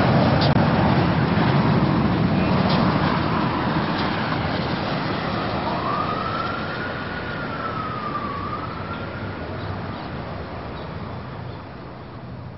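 City traffic noise fading out, with one distant siren wail in the middle that rises, dips and rises again.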